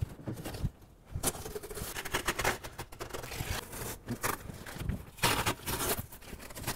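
Blue painter's tape being peeled off along a bathtub rim: irregular crackling and ripping, with the rustle of the peeled tape being bunched up.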